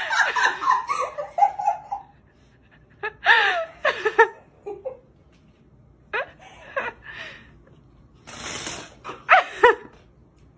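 People laughing in several separate bursts, with high squeals of laughter that swoop up and down in pitch, and a breathy gasp shortly before the last burst.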